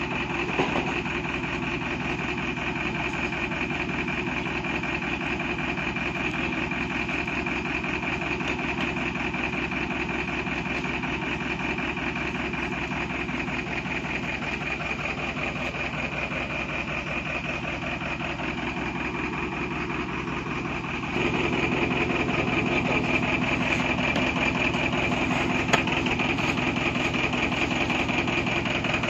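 Stuck truck's diesel engine idling steadily with an even, fast pulse; it becomes louder about two-thirds of the way through.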